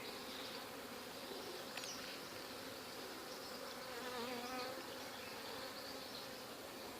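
A colony of Africanized honeybees humming steadily as a mass of many bees, with one bee buzzing louder and wavering in pitch for about a second around four seconds in.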